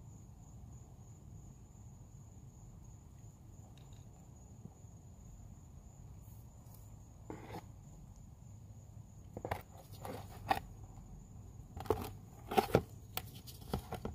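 Handling noise of a removed mechanical fuel pump being turned over by hand on a hard surface: quiet at first, then from about seven seconds in a run of sharp clicks and knocks as the metal pump body and its lever bump and scrape. A faint steady high thin tone sits in the background throughout.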